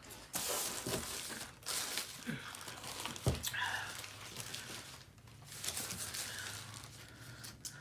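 Close-up eating noises in irregular bursts: paper taco wrappers crinkling and crunching.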